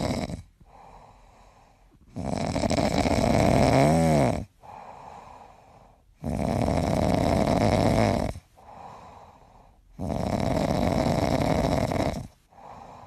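Dog snoring in deep sleep, a loud snore about every four seconds. Each snore lasts about two seconds, with a quieter breath between.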